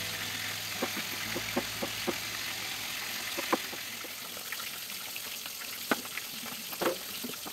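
A kitchen knife cutting carrot and onion on a plastic cutting board: a handful of irregular sharp taps as the blade meets the board, over a steady hiss.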